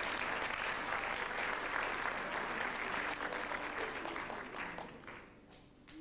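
Theatre audience applauding, the clapping dying away about five seconds in.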